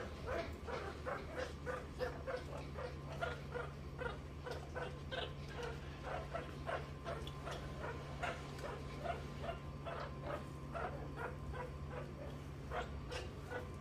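Meerkats calling: a long run of short, repeated peeping chirps, about three a second.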